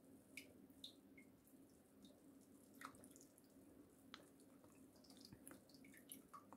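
Near silence: a faint steady hum with scattered small, irregular ticks and drip-like pops.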